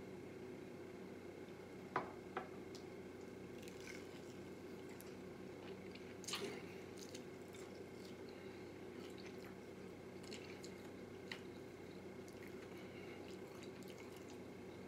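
Faint eating sounds: fried chicken being pulled apart by hand and chewed, with two sharp clicks about two seconds in and a short crackle around six seconds, over a steady low hum.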